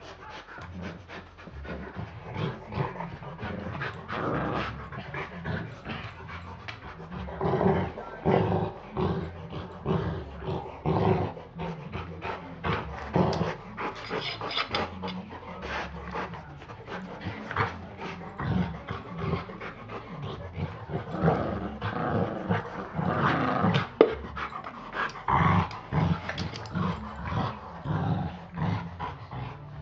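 A Chihuahua and a big dog play-fighting: growling, panting and scuffling in uneven bursts, with one sharp click late on.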